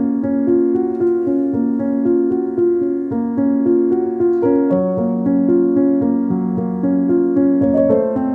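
Background music: a keyboard melody of evenly paced notes.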